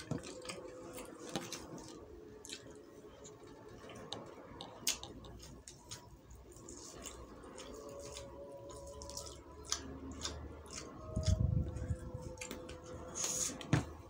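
Fingers tearing apart cooked quail and working rice and green sambal in a stone mortar: scattered small wet squishes and sharp clicks, with one louder low bump about eleven seconds in.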